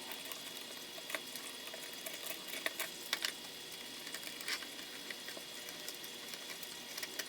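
Faint steady hiss with scattered light clicks and taps as small screws, nuts and hand tools are handled on the parts being assembled.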